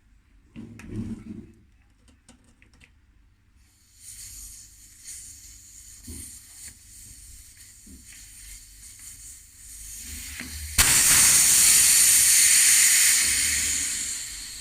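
Air hissing out of a bicycle tyre through its valve as the valve core is unscrewed. It starts as a faint hiss, then turns suddenly loud once the core comes free, and dies away as the tyre deflates.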